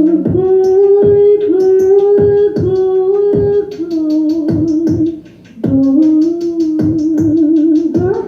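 Live music: a held, sliding melody line with wide vibrato over a steady low drone, with a sharp percussive beat at the start of many notes. The last note swells near the end.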